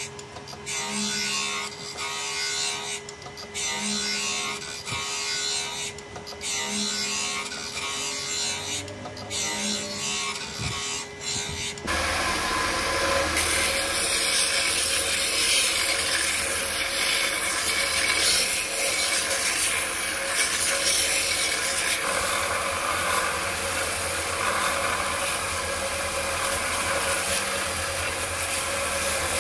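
Abrasive scraping work on a steel blade blank. For about twelve seconds it comes as irregular strokes with short breaks; then, after an abrupt change, it becomes a steady unbroken scraping noise with a low hum under it.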